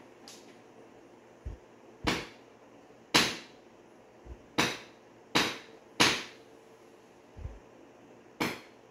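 Hammer striking a small metal clip laid on the floor to flatten it: six sharp blows at uneven intervals of roughly a second, each with a short ring, and a few lighter taps between them.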